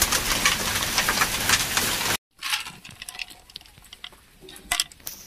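Hailstorm: a dense hiss of rain with many sharp clicks of hailstones striking the ground. It cuts off suddenly about two seconds in. After that come only a few scattered light clinks of hailstones in a metal basin.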